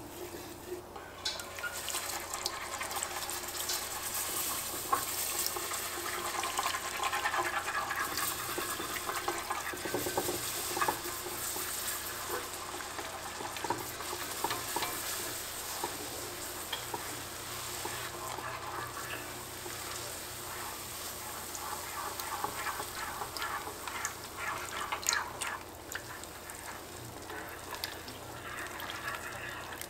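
Butter sizzling and foaming in an enameled cast-iron pot, stirred at first with a wooden spatula. Then a wire whisk stirs and scrapes a bubbling butter-and-flour roux, clicking against the pot, and milk is whisked in near the end.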